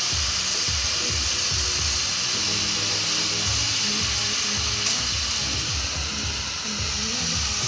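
Large ground fountain firework spraying sparks with a loud, steady hiss, and a single sharp crack about five seconds in. Low music plays underneath.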